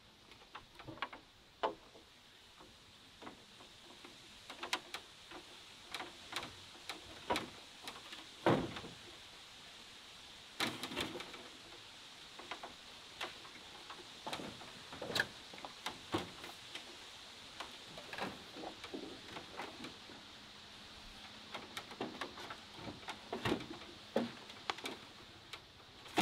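Bamboo poles knocking, clicking and creaking as they are handled and fitted to a bamboo house frame on a bamboo raft. The knocks come irregularly throughout, a few of them sharper than the rest.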